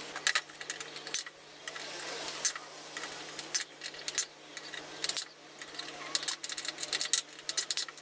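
Irregular sharp clicks and taps of small metal parts being handled, set in a small bench vise and center-punched for drilling, coming thicker toward the end.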